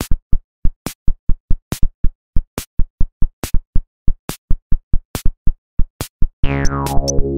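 Electronic music: a bare drum-machine beat of sharp hits, the strongest about once every second. About six and a half seconds in, synthesizer and bass join with falling sweeps.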